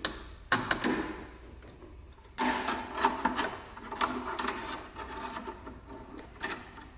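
Hands handling the copper brake lines and their metal fittings at a brake master cylinder, making light clicks and rattling. There are a couple of clicks in the first second, a stretch of busier rattling from about two and a half to five seconds in, and one more click near the end.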